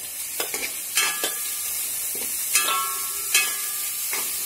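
Cooked green beans tipped into an aluminium kadai of onions, chillies and curry leaves frying in coconut oil, with a steady sizzle. A metal spoon and the pot knock and scrape against the pan several times, the louder strikes ringing briefly.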